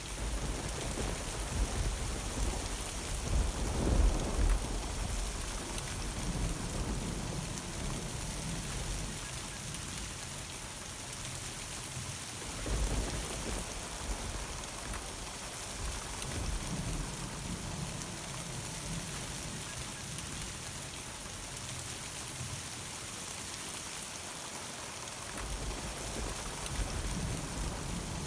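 Steady summer thunderstorm rain hissing down, with thunder rumbling low several times: near the start, a louder peak about four seconds in, again around thirteen seconds, and once more near the end.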